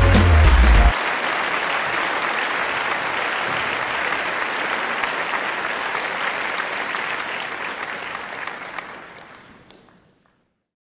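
An audience applauding steadily, fading away near the end and stopping about ten seconds in. Background music cuts off about a second in, just as the applause begins.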